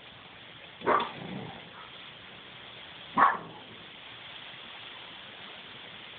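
A dog barks twice, two short barks a little over two seconds apart, over a steady low hiss.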